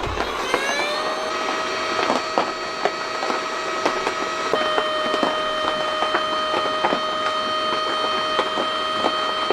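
Steam whistling over a crackling wood fire. The whistle rises in pitch over the first second, then holds a steady tone with a small step in pitch about halfway through, while the fire snaps and crackles.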